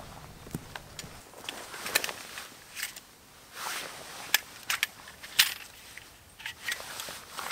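A folding bow saw being unfolded and opened out: scattered sharp metal clicks and rattles, with short rustles between them.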